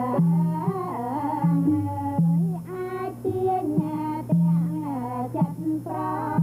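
Traditional Khmer pinpeat ensemble music accompanying Cambodian classical dance: a melody with sliding, bending notes over repeated low held notes.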